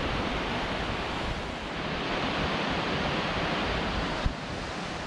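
Steady rushing noise of wind in the trees and a river flowing below, with wind buffeting the microphone. A single sharp click comes about four seconds in.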